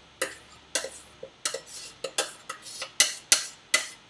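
A utensil scraping and knocking against the inside of a stainless-steel saucepan, a dozen or so sharp uneven knocks about three a second, as thick cooked polenta is scraped out of the pot.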